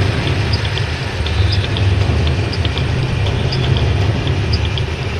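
Car engine running with a steady low rumble as a sedan pulls away.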